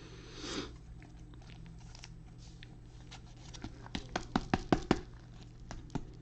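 Hands handling trading cards and pack material: a soft rustle at the start, then a quick run of about ten sharp clicks and taps between four and five seconds in, and one more near the end.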